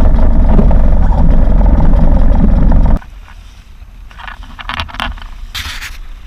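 Small boat under way, its motor running under heavy wind buffeting on the microphone. The sound cuts off suddenly about three seconds in, leaving a much quieter stretch with a few light knocks and a short hiss near the end.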